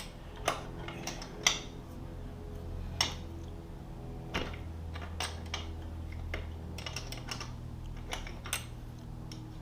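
Irregular metallic clicks and taps of a 12 mm wrench working a rear-wheel adjuster bolt loose on a motorcycle swingarm, over a steady low hum.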